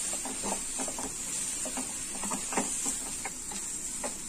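A spatula stirring and scraping a mawa (khoya) and sugar gujiya filling around a non-stick frying pan, in irregular short strokes over a steady faint hiss. The filling is being roasted dry, to the point where it starts to leave the pan.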